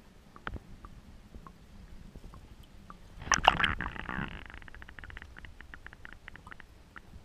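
Water splashing and bubbling around a waterproof action camera's housing at the surface, with a loud burst about three seconds in, then a run of quick ticks and small clicks.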